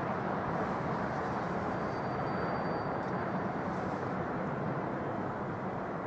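Steady outdoor background rumble of distant city traffic, even and unbroken, with a faint thin high tone lasting about a second and a half near the middle.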